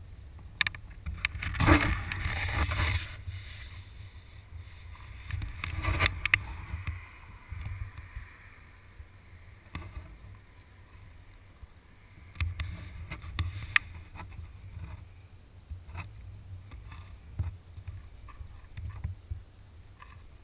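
Wind buffeting a motorcycle-mounted camera's microphone: a steady low rumble, with louder gusts about two seconds in and again around six seconds, and scattered knocks.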